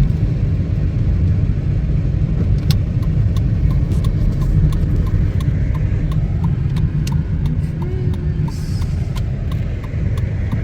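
Steady low rumble of a car being driven, heard from inside the cabin. From a few seconds in until near the end there is a regular light ticking, about two to three a second.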